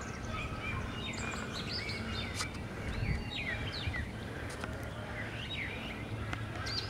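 Several birds chirping and whistling in quick, overlapping calls over a steady low rumble of background noise.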